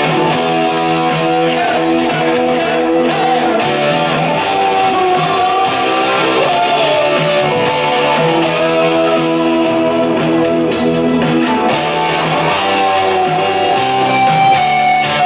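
Live rock covers band playing an 80s song, electric guitars strumming prominently with a held melody line that slides in pitch.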